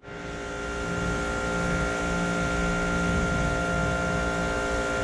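Pressure washer running while its jet sprays water onto a car windshield: a steady machine hum with several fixed tones over the hiss of the spray.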